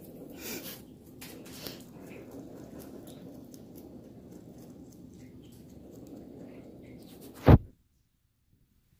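Pet rabbit chewing a leafy green, a steady soft munching with small crisp crunches. A single sharp, loud thump sounds near the end.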